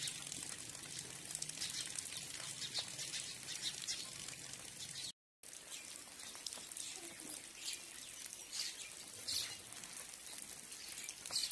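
Rain falling steadily, a dense pattering with many small drips and splashes. It breaks off for a moment about five seconds in.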